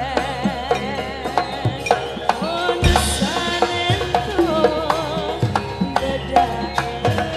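A Javanese sinden (female gamelan singer) sings a melismatic line with wide vibrato. Gamelan accompanies her, with frequent sharp kendang drum strokes.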